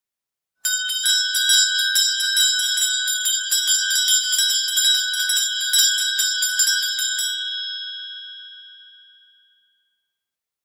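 Christmas bell rung rapidly and repeatedly with a bright, high ringing for about seven seconds, then left to ring out and fade away.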